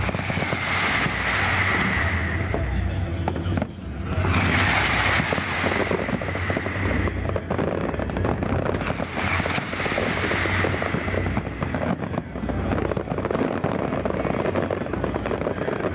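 Fireworks going off in a dense, continuous barrage of crackles and bangs that swells in waves, with a brief lull a little under four seconds in.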